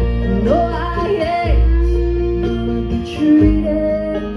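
Bluegrass string band playing an instrumental passage live, with acoustic guitar and upright double bass under a lead line that slides between notes.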